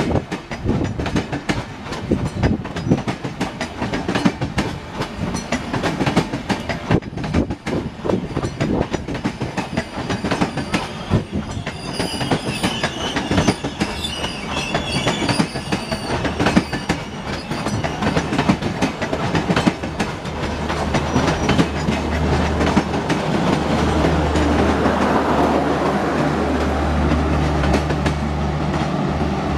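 Indian Railways LHB passenger coaches rolling past, their wheels clicking steadily over the rail joints, with a high wheel squeal for a few seconds in the middle. About two-thirds of the way through, a steady low drone takes over as the end power car and its diesel generator pass.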